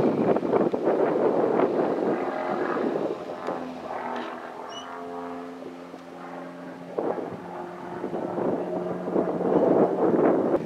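Piston engine of an aerobatic biplane running through a smoke-trailing dive, a steady droning tone that fades in the middle and swells again over the last few seconds.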